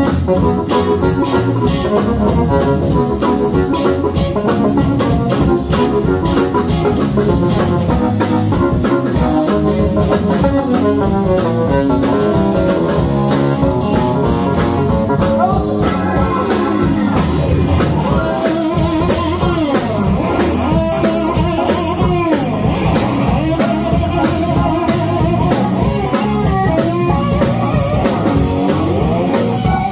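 Live blues band playing: organ from a red Nord keyboard over drum kit and bass, then from about sixteen seconds in an electric guitar leads with bent notes.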